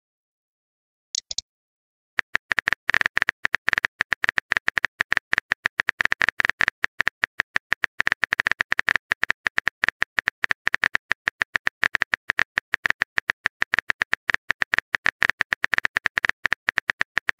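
Rapid typing clicks from a texting app's phone-keyboard sound effect, many taps a second, starting about two seconds in and running on without a break. A single short blip comes about a second in.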